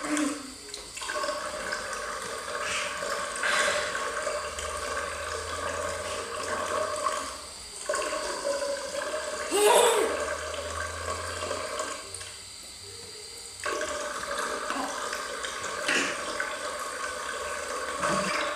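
Water running from a bidet's mixer tap into the ceramic bowl, stopping and starting three times as the tap is worked. The longest pause lasts about a second and a half. A toddler's short loud vocal sound comes about ten seconds in.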